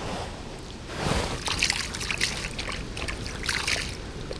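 Water sloshing and trickling with many small irregular splashes, starting about a second in, as a landed carp is let back into the lake.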